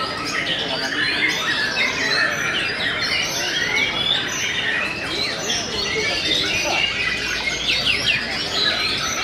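Many caged white-rumped shamas (murai batu) singing at once in competition: a dense, unbroken tangle of overlapping whistled phrases, trills and chirps.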